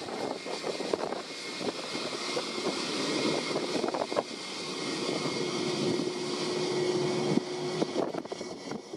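ATR 72-600 twin turboprop's engines and propellers running on the landing rollout, a steady rough drone. A steady hum joins about halfway through and stops abruptly about a second before the end.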